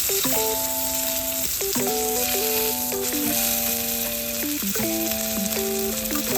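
Food frying in a pan with a steady sizzle, over background music of held, changing notes. The sizzle cuts off suddenly at the very end.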